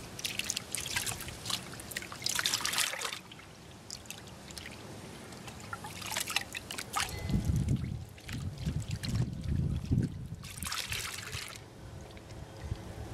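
Muddy water sloshing and splashing in a plastic gold pan as it is swirled and dipped in a water-filled tub, washing the light material off a crushed-rock sample to leave any gold in the bottom. The splashing comes in bursts, with a low rumble in the middle.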